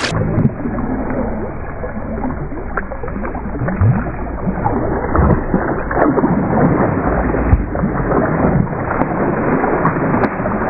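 Pool water splashing and sloshing as people move and swim through it, heard muffled with the camera at the water line.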